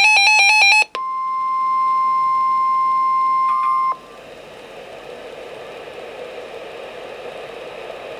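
Emergency-alert tones on a weather radio. A fast warbling two-tone electronic alert ends just under a second in. After a short gap, the NOAA Weather Radio warning alarm sounds as one steady high beep for about three seconds and cuts off suddenly, leaving an even radio hiss, the open carrier before the warning message.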